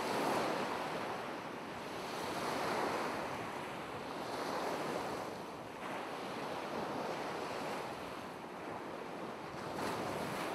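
Ocean surf breaking on a sandy beach: a continuous wash of waves that swells and fades every two to three seconds.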